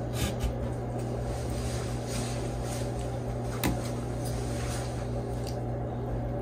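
A few light clicks of chopsticks against an open metal sardine tin, the sharpest a little past halfway, over a steady low hum.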